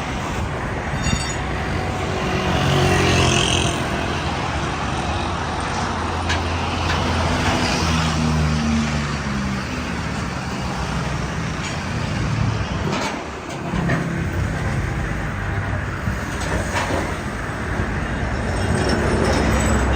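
Road traffic: motor vehicle engines running, their pitch rising and falling, over steady road noise.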